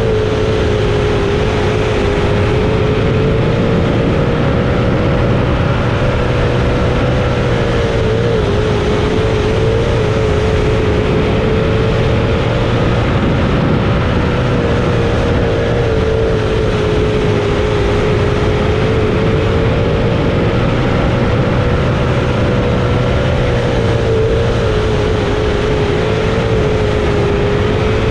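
305 sprint car's V8 engine at racing speed, heard from an onboard camera: a loud, steady engine note with wind rush, its pitch rising and falling a little every few seconds.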